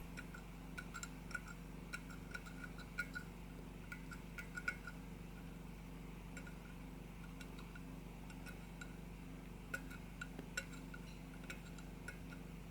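Faint, irregular little clicks and ticks of a blade scraping and chipping excess hardened epoxy off a glazed ceramic figurine, in two bursts of work with a lull in the middle.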